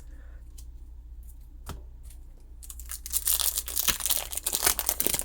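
Foil Pokémon booster pack wrapper crinkling and tearing open, a dense rapid crackle that starts a little past halfway, after a single click.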